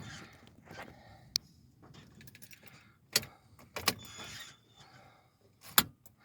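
Keys jangling, with a handful of sharp clicks spread a second or two apart.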